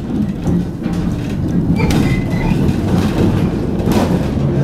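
Heritage electric tram running along the track, heard on board: a steady low rumble of wheels on rail with occasional knocks, and a brief high wheel squeal about two seconds in.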